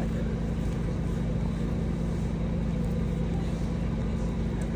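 A steady, unchanging low engine-like drone, as of a motor or generator running.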